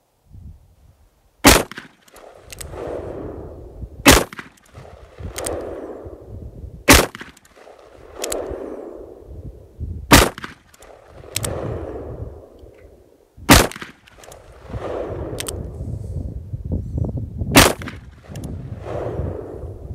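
Smith & Wesson pre-Model 29 .44 Magnum revolver with a 4-inch barrel firing six full-power 240-grain jacketed hollow-point rounds, one shot about every three seconds. Each shot is followed by a trailing echo.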